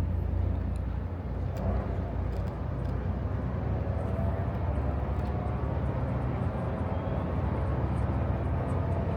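Harbor tour boat's engine running with a steady low drone, a faint steady whine joining it about four seconds in.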